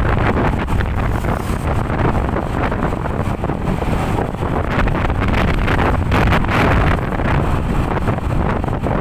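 Loud wind buffeting the microphone over steady road and engine noise from travelling along a road. No horn is sounding.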